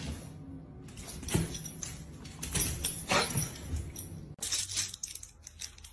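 A dog moving on a tiled kitchen floor: a few short scrapes and clinks, like claws on tile and a jingling collar, the last cluster as it rears back. A faint steady low hum runs underneath.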